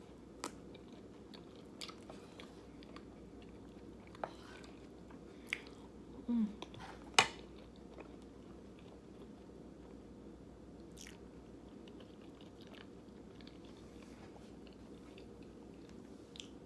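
Quiet mouth sounds of a person eating: soft chewing and crunching with a few scattered clicks, a short voiced sound about six seconds in, and one sharp click about seven seconds in, the loudest moment.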